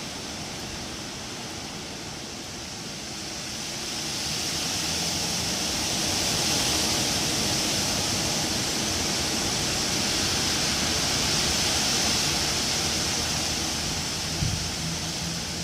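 Wind blowing through trees, the leaves rustling in a steady hiss; a gust builds about four seconds in, holds, and eases off near the end.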